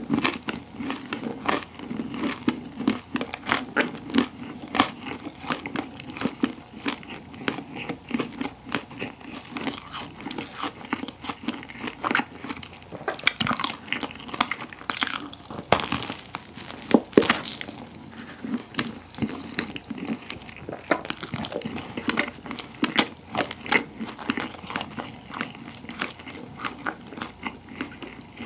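Close-up chewing of a crisp pollock-roe baguette: its crust crunches and crackles in quick, irregular snaps, with a few louder crunches around the middle.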